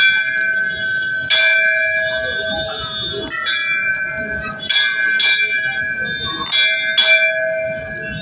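Hindu temple bells struck repeatedly: about six clangs one to two seconds apart, each ringing on with a steady metallic tone.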